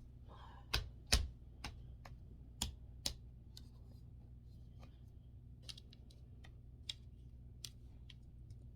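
Irregular light clicks and knocks of drying-rack parts being handled and fitted together during assembly, with a few louder knocks in the first three seconds and sparser ticks after.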